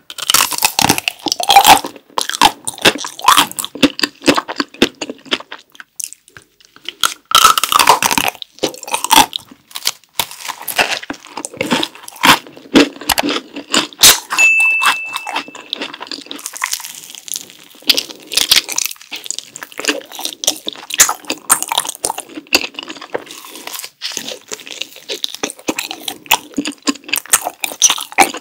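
Close-miked eating sounds: a run of crisp bites and crackling crunches through a chocolate-coated ice cream bar and a macaron ice cream sandwich, then chewing of a chocolate-filled green tea rice cake near the end. About halfway through comes one short, steady high tone.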